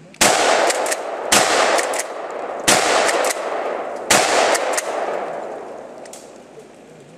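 Four 12-gauge shotgun shots in quick succession, about a second and a half apart, each loud blast trailing a long echo that dies away slowly after the last shot.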